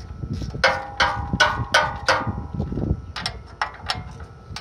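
Socket ratchet wrench being worked on a bolt of a snowblower's air-cleaner cover: a run of sharp, ringing metallic clicks, about three a second, then a short pause and three more.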